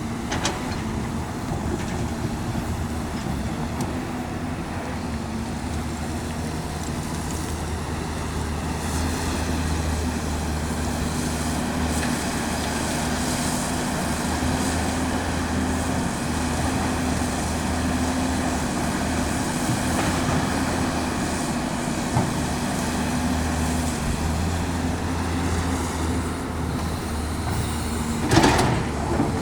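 Caterpillar 329D L hydraulic excavator's diesel engine running steadily under working load, its pitch swelling slightly at times as the hydraulics pull. There are a few sharp metallic knocks near the end.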